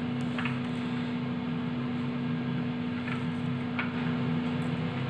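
A steady electrical hum runs throughout, like a kitchen appliance running. Three faint light ticks of walnut pieces being set onto muffin batter come about half a second in, at about three seconds and just before four seconds.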